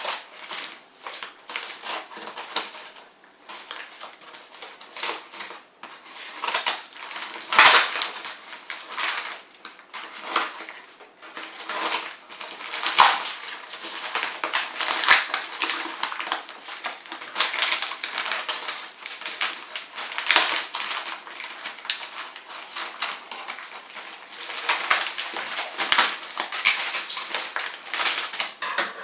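Packaging around a book being handled and unwrapped: irregular crinkling and rustling with sharp clicks, some louder snaps scattered through.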